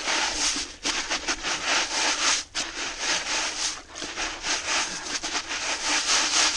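Creek gravel and sand being worked through a quarter-inch mesh bucket classifier sieve: a continuous rhythmic scraping rasp of stones rubbing on the wire mesh.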